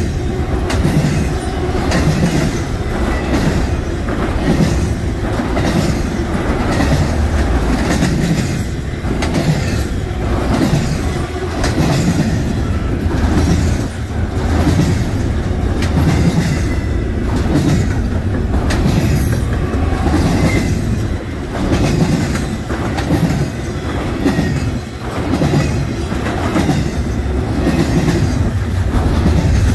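Freight cars of a doublestack intermodal train rolling past at speed: the steel wheels click in a steady, repeating rhythm over a constant rumble.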